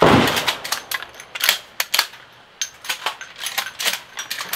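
Rapid metallic clicks and clacks of pump-action shotguns being reloaded by hand with dummy rounds: shells pulled from side saddles, pushed into the action and the slides worked. A single sharp loud crack opens it.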